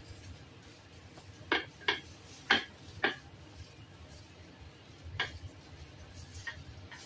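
A few light clicks and knocks on a ceramic serving plate as sushi slices are set down on it by a gloved hand: four close together, then two more spaced out.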